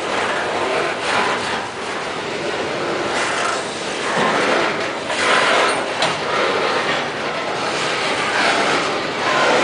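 Coal hopper cars of a freight train rolling past on steel wheels: a steady rumbling rattle of wheels on the rails, with a couple of sharp clicks about four and six seconds in.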